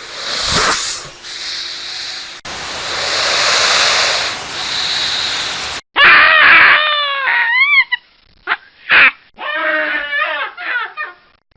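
Spliced animal sound-effect clips: about six seconds of noisy rushing sound, then a series of high, wavering animal cries whose pitch rises and falls, some long and some short.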